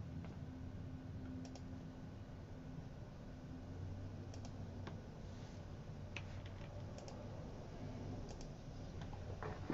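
Faint, irregular clicks on a computer keyboard over a low steady hum.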